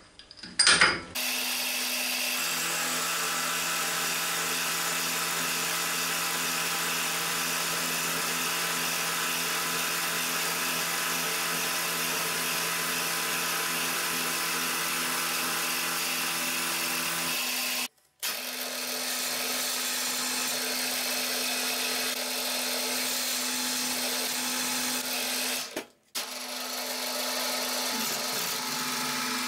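Milling machine running with an end mill cutting the edge of a 6 mm plate: a steady motor whine over a cutting hiss. The sound breaks off sharply twice, and in the last part a drill bit is boring into the plate.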